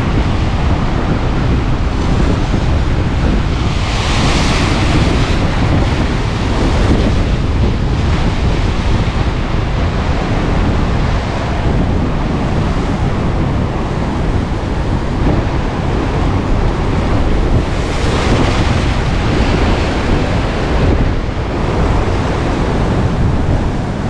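Strong wind buffeting the microphone with a steady low rumble, over rough sea breaking in white surf against a rocky shore. The hiss of surf and wind swells louder twice, about four seconds in and again near eighteen seconds in.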